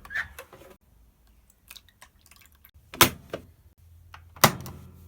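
Two loud, sharp knocks about a second and a half apart, among fainter scattered clicks.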